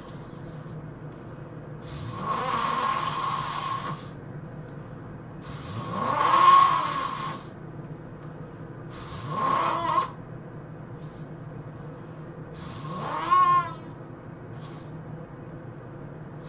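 A person snoring loudly: four snores about three to four seconds apart, several with a pitch that rises through the snore. The last, near the end, is short and ends in a rising squeal. A steady low hum runs underneath.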